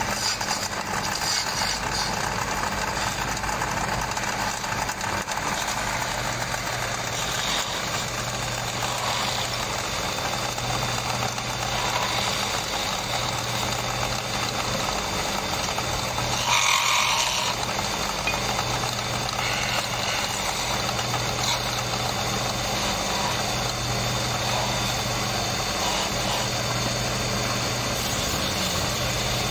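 Small woodturning lathe's motor running steadily with a low hum, with a brief louder burst partway through.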